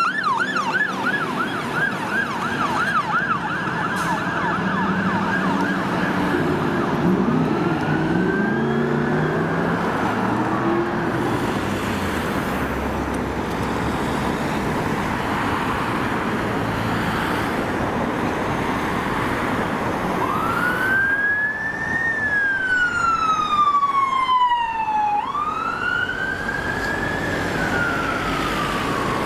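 London Fire Brigade sirens in city traffic: a rapid yelp for the first six seconds or so, then slower wails, each sweep rising quickly and falling slowly over a few seconds, with heavy engine and traffic noise underneath.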